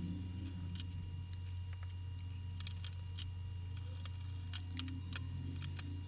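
Scattered small sharp clicks and taps of laptop parts and screws being handled during reassembly, over a steady low electrical hum.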